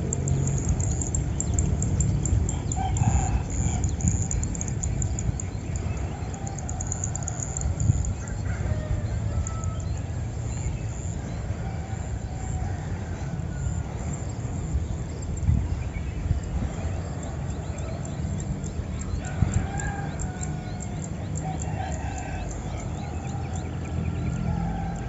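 Morning birdsong: a fast, high chirping trill over the first several seconds and scattered short bird calls throughout, with roosters crowing in the distance a few times, over a steady low rumble.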